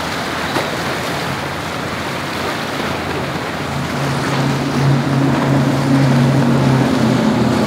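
Wind on the microphone and rushing water, then from about halfway the steady drone of a center-console boat's engines passing at speed, a little louder near the end.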